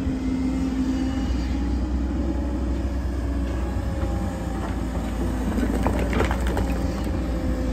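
Cat 313F tracked excavator's diesel engine running steadily under load with a faint hydraulic whine as it works a riddle bucket, and a short clatter about six seconds in.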